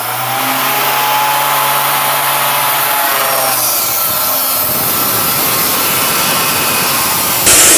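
DeWalt D28870 14-inch (355 mm), 2200 W abrasive chop saw running at full speed. From about three seconds in, its cut-off wheel grinds through a 2x2 steel square tube, and the grinding grows louder near the end.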